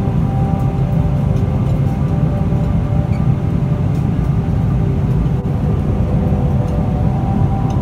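Steady low rumble of a Boeing 777-300ER's cabin in flight: airflow and GE90 engine noise heard from a business-class seat, even and unchanging.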